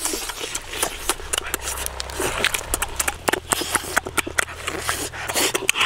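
Close-up eating sounds of a person chewing and lip-smacking on roast chicken, a dense run of irregular clicks.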